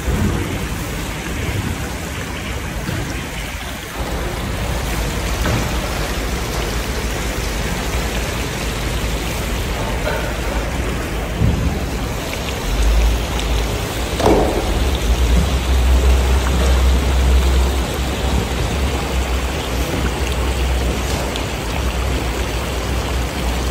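Broth with carrot strips boiling in a giant cooking pot under a heaped mound of rice, giving a steady rain-like hiss. A low rumble joins in partway through.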